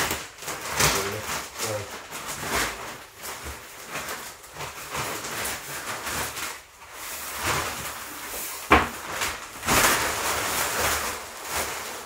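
A large sheet of clear plastic wrapping rustling and crinkling in irregular bursts as it is pulled off and handled, with one sharp snap a few seconds before the end.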